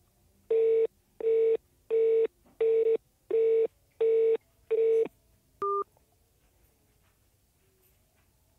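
Phone keypad tones: seven evenly spaced beeps, about one every two-thirds of a second, as a star-code for checking the balance is keyed in on a mobile phone, followed just under six seconds in by one shorter beep.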